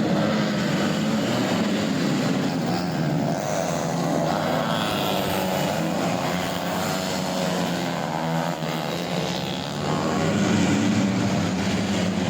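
Tuned four-stroke 125 cc underbone motorcycle engine with an open exhaust, running hard at high revs, its pitch rising and falling and picking up again after a brief dip near the end.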